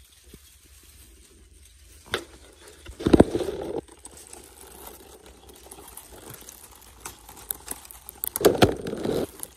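Dry grass and reed stems rustling and crackling as they are pushed aside by hand, in irregular bursts: a short one about two seconds in, a longer one about a second later, and another near the end.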